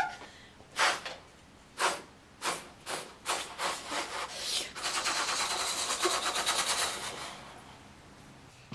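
A boy imitating a steam train chugging with his mouth: breathy chuffs, slow at first and speeding up into a rapid continuous chuff-chuff, then fading out near the end.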